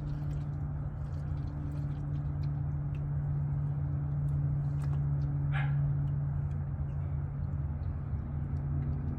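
Old engine oil pouring from the open drain hole into a drain pan, a steady hiss under a steady low hum, with one brief higher sound a little past the middle.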